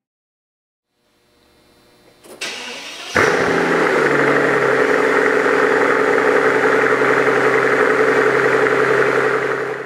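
The 2007 Mercedes-Benz S65 AMG's 6-litre twin-turbo V12 being started: the starter cranks briefly, the engine catches about three seconds in and settles into a steady, loud idle.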